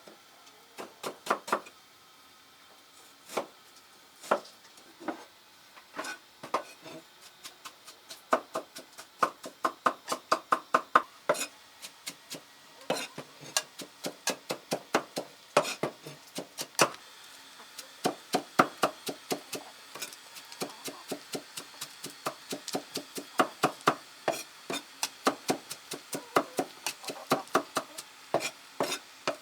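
Knife chopping on a wooden cutting board: runs of sharp, quick strokes, sometimes several a second, with short pauses between runs.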